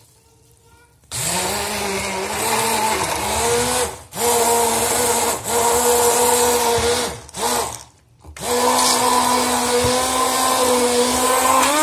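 Hand-held immersion (stick) blender pureeing mango chunks with sugar and water in a glass. It switches on about a second in and runs in several stretches, broken by short stops, with its pitch rising slightly during the first run.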